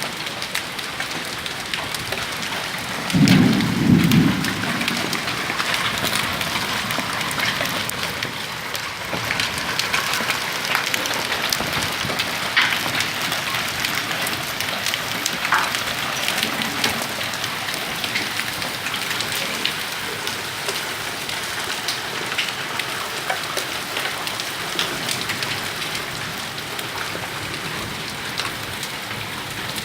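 Hailstorm: hailstones and rain pattering steadily on surfaces, with many sharp individual stone strikes. A brief low rumble comes about three seconds in.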